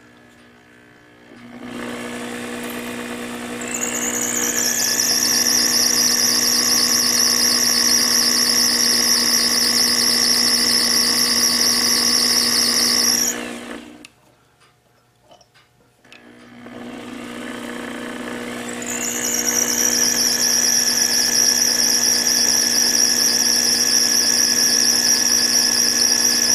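Small bench lathe running a fine .030 drill bit into the tip of a clock's center shaft, in two runs: each time the motor comes up, rises in pitch after a couple of seconds and a high steady squeal joins. The first run stops about halfway through, and after a short pause the second starts.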